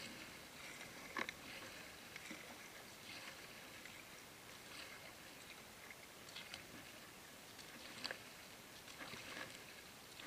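Faint water lapping and trickling against a kayak hull as it glides along, with a couple of soft knocks, about a second in and near the end.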